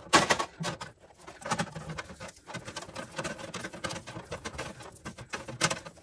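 Tape being wrapped around the end of a wiring harness to hold it to a pull wire: an irregular run of small crackles and clicks.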